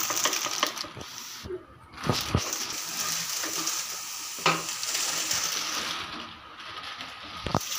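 Lentil fritters (garelu) deep-frying in hot oil in an iron kadai: a steady sizzle that fades near the end. A few sharp knocks of utensils on the pan and counter are heard over it.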